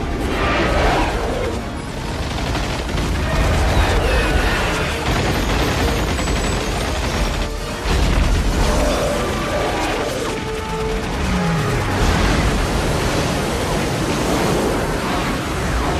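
Action-film soundtrack: dramatic music over missile fire and explosions, dense and loud throughout.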